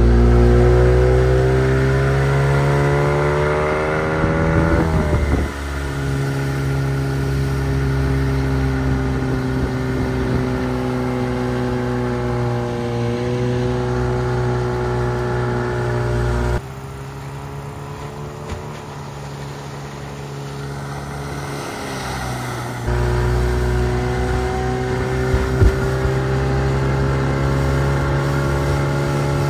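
Outboard motor of a mini boat running under way, rising in pitch as it speeds up over the first five seconds, then holding a steady speed. The sound changes abruptly a few times, dropping to a quieter stretch for several seconds past the middle before it comes back.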